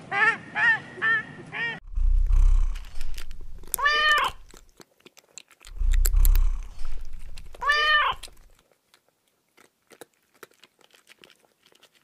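An Egyptian goose gives a quick run of short honks for the first couple of seconds. Then a domestic cat purrs in two low stretches, each ending in a single meow that rises and falls, followed by scattered faint clicks.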